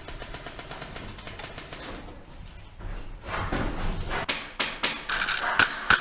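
Airsoft gun firing: a few sharp clicks about four seconds in, then a quick run of semi-automatic shots, about three a second, each with a short ringing tone. Before that there is only low rustling movement noise.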